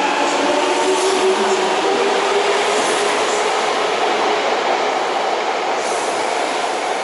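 Fukuoka City Subway Airport Line train moving along the platform. Its motor whine rises slowly in pitch over the first few seconds, as it does when a train accelerates, then fades under the steady rush of wheels on rail.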